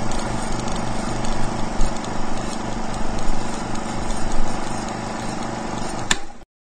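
A steady machine hum with a low pulse about three times a second. It ends in a sharp click and cuts off suddenly.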